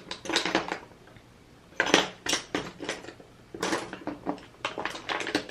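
An eyeshadow palette being handled and opened: a run of irregular small clicks and clatters of hard cosmetic packaging.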